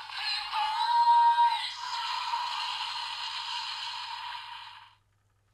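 A DX Kamen Rider Revice Thunder Gale toy's small built-in speaker playing an electronic jingle with sung vocals, thin and without bass, cutting off suddenly about five seconds in.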